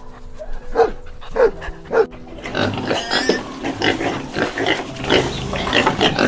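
Pigs grunting: three separate grunts in the first two seconds, then a dense run of quick grunts and squeals from about two and a half seconds in.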